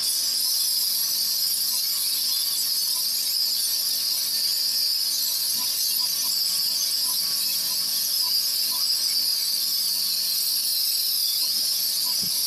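Pressure washer's high-pressure water jet blasting stone pavers: a steady, loud hiss, with a faint steady machine hum beneath it.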